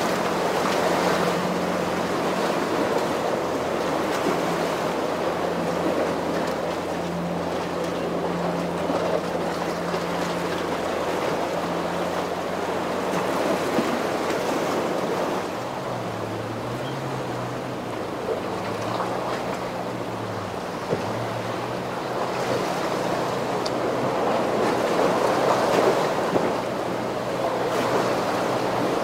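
Boat engine humming steadily over the rush of surf and wind. About halfway through, the engine's pitch wavers up and down as the throttle changes, and the surf swells louder near the start and again near the end.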